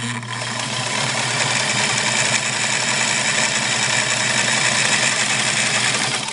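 Singer Model 237 sewing machine running at full speed, stitching a wide zigzag through a pleather belt: a steady motor hum with the rapid chatter of the needle mechanism, which stops at the end.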